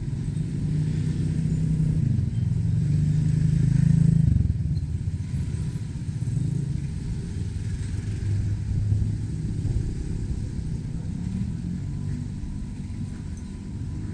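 A motor vehicle engine running close by. It builds to its loudest about four seconds in, falls away, and swells again briefly around nine seconds, as traffic passes along a busy market lane.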